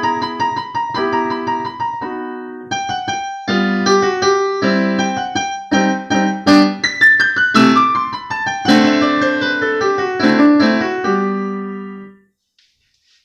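Digital piano playing the closing bars of a classical piece: a descending run of notes, then a final chord held and cut off about twelve seconds in.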